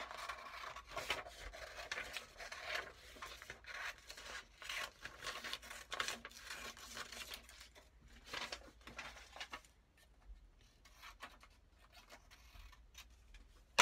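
Scissors cutting through a sheet of paper, a run of short snips with the paper rustling as it is handled, thinning out and quieter in the last few seconds.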